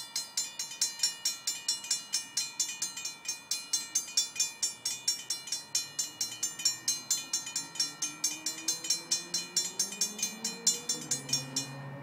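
Railroad crossing warning bell ringing in rapid, even strokes, about four to five a second, as the crossing gates come down. The bell cuts off just before the end, once the gates are down. A faint low hum rises in pitch through the second half.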